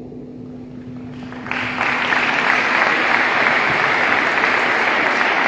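Audience applauding, breaking out suddenly about a second and a half in and then continuing steadily.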